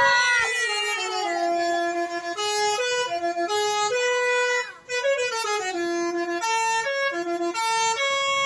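Telolet basuri musical bus horn playing a tune of held notes that step up and down, with a few sliding notes between them. It breaks off briefly about halfway through, then carries on.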